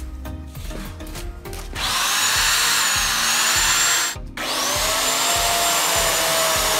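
Bosch corded electric chainsaw running at full speed against a log, its motor whine rising as it spins up. It cuts out briefly about four seconds in and starts again. The chain is fitted backwards, so the saw runs without cutting.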